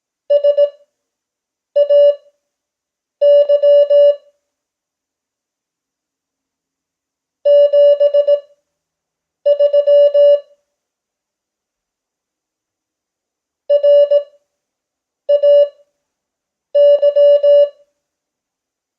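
Morse code (CW) practice tone keyed in dots and dashes at 5 words per minute Farnsworth speed. Each letter is sent quickly as a single steady beep pitch, with long gaps between letters and longer pauses between words.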